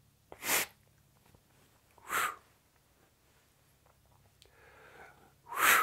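A short, sharp blow through a kuripe, the self-applicator snuff pipe, sending a dose of rapé snuff up the nose, followed by two more heavy breaths through the nose, about two seconds in and near the end, as the snuff stings.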